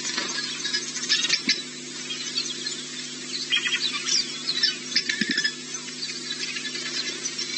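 Birds chirping and calling, many short high chirps and quick scratchy bursts scattered throughout, over a steady low hum.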